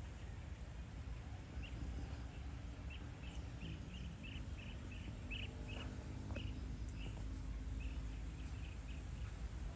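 Evening outdoor ambience: a small creature chirps in a quick run of short, high, evenly repeated notes, about two or three a second, starting about a second and a half in, over a low steady rumble.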